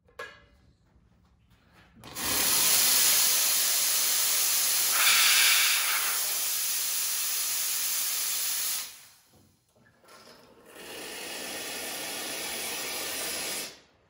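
Steam hissing hard out of an Astoria Gloria AL1 lever espresso machine in two long blasts. The first starts about two seconds in and runs about seven seconds. After a short break, a second, slightly quieter blast starts and cuts off sharply near the end.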